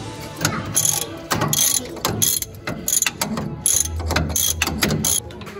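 Ratcheting wrench clicking in short irregular runs as it turns out a bolt holding the throttle control assembly to a Ford Model A's firewall.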